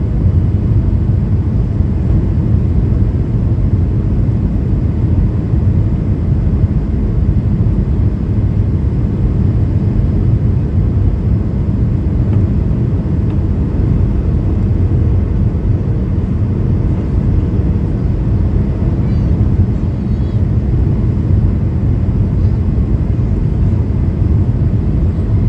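Steady low rumble of a Boeing 737-800 in flight, heard from inside the passenger cabin: its CFM56-7B engines and airflow over the fuselage during the final approach.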